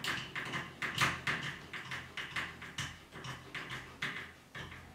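Screwdriver tightening Phillips pan-head screws into a door handle: a run of short clicks and scrapes, about three a second, dying away near the end.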